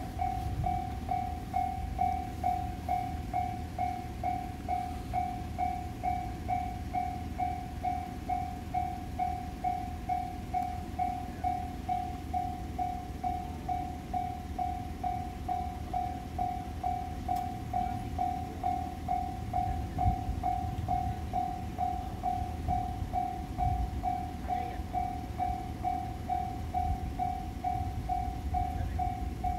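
Railway level-crossing warning bell ringing steadily, about two dings a second, all on one tone, with a low rumble underneath.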